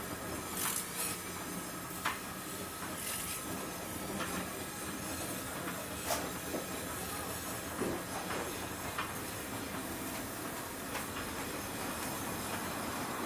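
Charcoal chicken rotisserie: a steady sizzling hiss over the coals under a running mechanical rattle from the turning spits, with sharp clicks and crackles every second or two.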